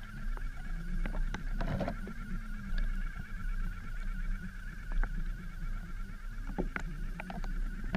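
Zombait robotic fish lure's small electric motor whirring underwater, a steady buzz with a lower hum beneath it, broken by scattered clicks and knocks.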